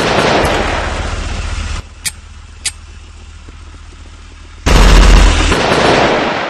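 Dubbed sound-effect gunfire: a burst of rapid automatic shots from a submachine gun for about two seconds. A quieter stretch with two sharp clicks follows, then a second, heavier burst of shots that dies away in an echo near the end.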